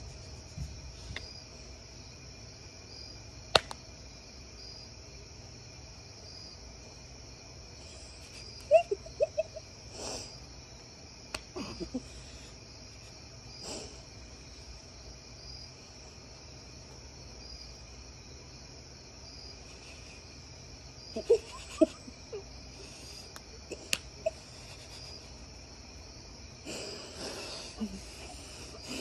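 Crickets chirping steadily in a high, regular pulse, with a few sharp smacks in between.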